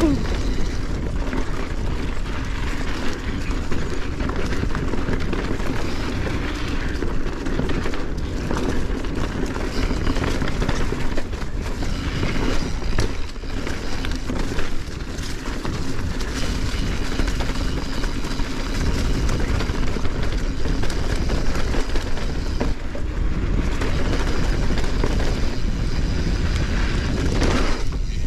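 Mountain bike rattling steadily over rough dirt trail at speed, with tyre noise and many small knocks from the bike and mount going over roots and rocks.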